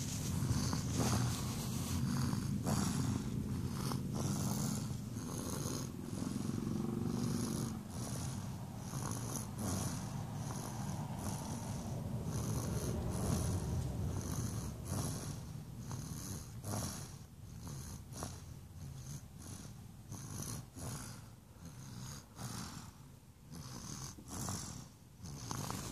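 A sleeper snoring: a continuous low rumbling breath, softer and more uneven over the second half.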